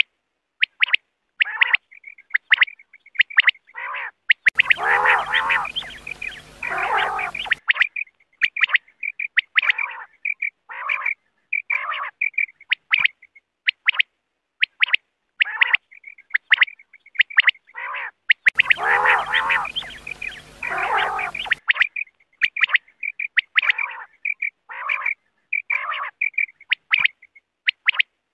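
Quail calls played as a hunting lure: short, high chirps repeating about once a second, mixed with lower falling calls. Twice a denser stretch of many overlapping calls over a hiss lasts about three seconds, the pattern coming round again about every fourteen seconds.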